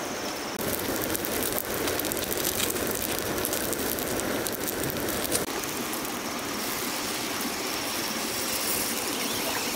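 Wood campfire burning: a steady hiss with faint scattered crackles from the logs and embers, with fish grilling over it.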